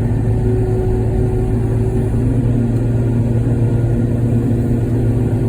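Excavator's diesel engine running steadily at a constant pitch under hydraulic load.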